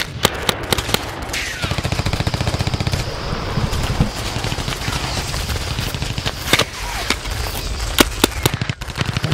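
Paintball markers firing: fast strings of pops with sharper single shots scattered among them.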